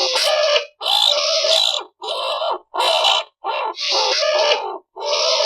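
Skunk calling: a string of about six harsh, pitched calls, each half a second to a second long, with brief pauses between them.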